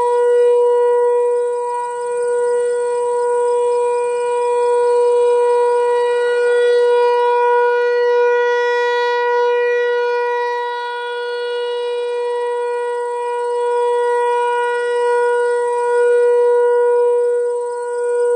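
American Signal T-128 rotating outdoor warning siren sounding a steady alert tone, holding one pitch. It swells and fades in loudness every several seconds as the rotating head sweeps around.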